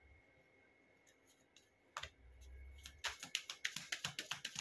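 A deck of divination cards being handled and shuffled by hand: a soft tap about two seconds in, then a quick run of light card clicks near the end.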